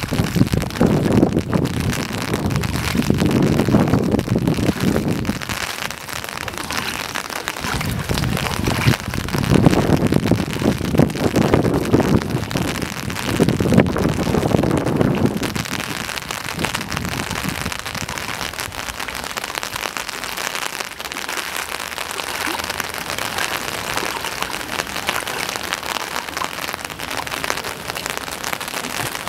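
Rain falling onto the standing water of a flooded street, a steady hiss. Three louder low rumbles swell and fade during the first half.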